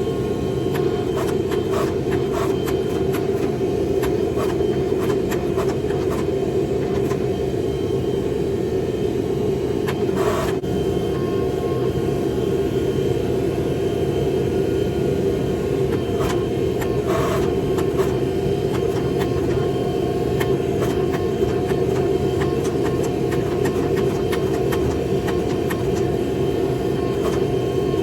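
A forge running with a steady roar, with a few faint clicks over it.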